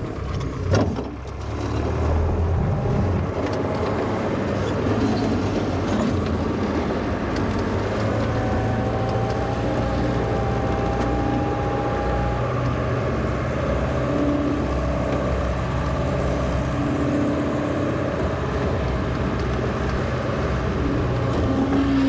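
The 1963 Volvo LM225 wheel loader's engine running steadily, with a short clunk under a second in.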